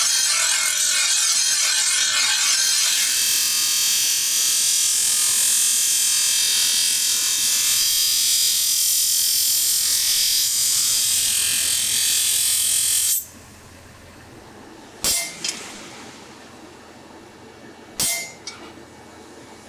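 Bench grinder wheel grinding the edge of a long steel tuna knife blade, a steady high hiss of steel on the abrasive wheel that stops suddenly about thirteen seconds in. Then two sharp metallic strikes about three seconds apart, on a punch held against the blade on an anvil.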